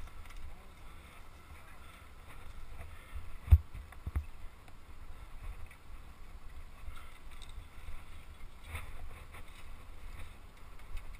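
Mountain bike rolling slowly over a rocky trail, heard as a low rumble and rattle through the handlebar-mounted camera. There is one sharp loud knock about three and a half seconds in and a smaller one just after, as the bike jolts over rocks.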